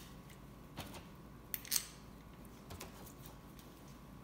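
A few faint metallic clicks and clinks as a steel bolt and weld washers are handled and fitted together in gloved hands.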